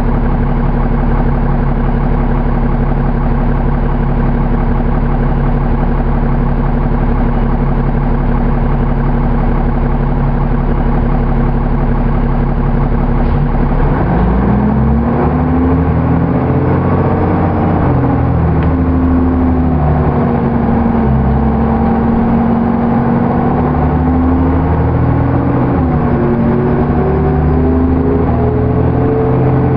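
Cummins ISC inline-six diesel of a 2001 New Flyer D35LF bus idling steadily, heard from inside the cabin. About halfway through, the engine revs up as the bus pulls away. The pitch climbs, dips a couple of times as the Allison automatic transmission shifts up, and rises again near the end.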